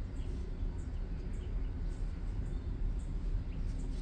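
A steady low rumble, with faint bird chirps scattered through it.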